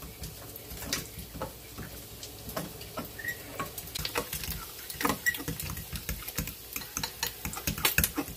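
A utensil stirring thick almond-flour waffle batter in a glass bowl: irregular clinks and taps against the glass with a wet stirring sound, quicker and louder in the second half.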